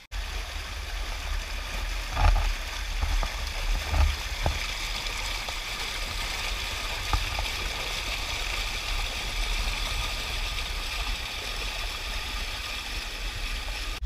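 Mountain creek rushing and splashing over rocks, heard close up as a steady dense hiss with a low rumble. It swells louder briefly about two and four seconds in.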